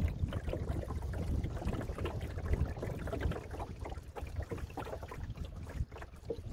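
Water lapping and splashing irregularly against the wooden hull of a small sailing boat under way, with wind rumbling on the microphone.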